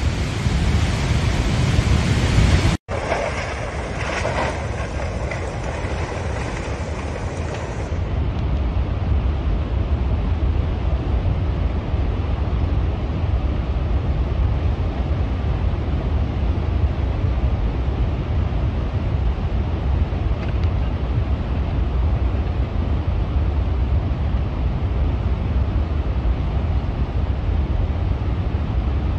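Raging muddy floodwater rushing in a steady, low, heavy noise. The sound cuts out for an instant about three seconds in.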